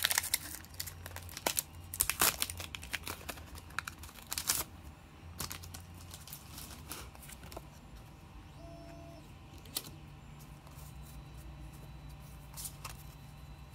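Foil Pokémon Hidden Fates booster pack being torn open and its wrapper crinkled: dense sharp crackles and rustles for the first few seconds. These thin out into quieter handling as the cards are pulled out.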